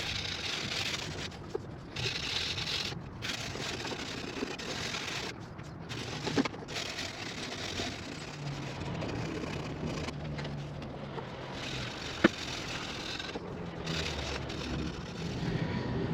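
60-grit sandpaper scraping over a fiberglass boat hull, sanding in uneven strokes broken by several short pauses.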